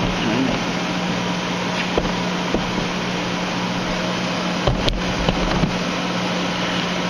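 Clausing Colchester 15-inch lathe powered up, its motor and oil pump running with a steady hum while the spindle is not yet turning. A few sharp clicks come about five seconds in.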